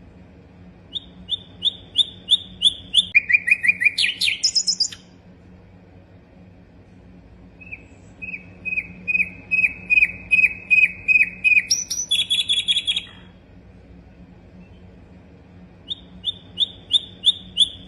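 Sikatan londo flycatcher singing in three bouts. Each bout is a quick run of repeated sharp high notes that switches to a different note partway through, with short pauses between the bouts.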